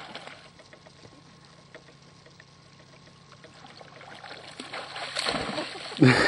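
Water trickling and lapping, rising to a loud splashing surge near the end.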